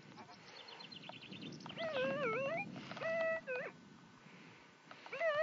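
Minelab E-Trac metal detector sounding target tones: a wavering tone about two seconds in, a short steady tone about three seconds in, and another wavering tone near the end. Faint crumbling of a soil lump in the hands comes before them. The tones signal a coin in the broken soil.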